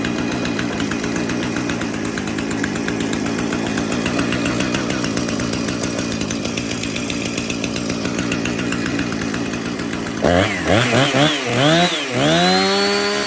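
Husqvarna 455 Rancher two-stroke chainsaw idling steadily, then revved in about five quick blips of the throttle from about ten seconds in, ending on one longer high rev.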